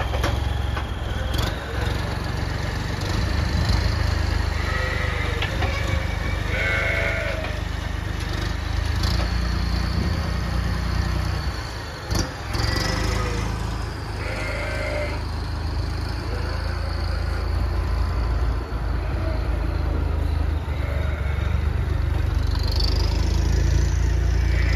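Valtra A93 turbodiesel tractor engine running steadily with a low drone, while sheep bleat over it several times.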